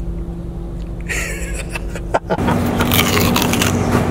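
Steady low hum of a car cabin on the move, with a short rustle about a second in. About two seconds in it cuts abruptly to background music with steady held low notes.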